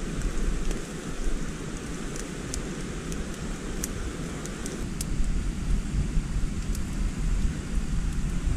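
Steady deep rush of nearby river rapids, with a wood campfire crackling in sharp, irregular pops.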